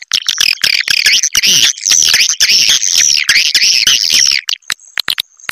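Edible-nest swiftlets twittering: a dense run of rapid, overlapping high chirps that thins out about four seconds in to scattered clicks over a thin steady high tone. This is a swiftlet roosting lure call, played to draw swiftlets into a bird house.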